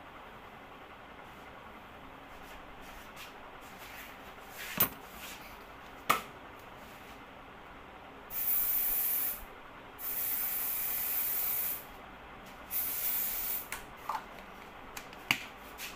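Aerosol hair spray can sprayed in three bursts of hiss, the middle one the longest, to set the hair. Two sharp clicks come before the spraying.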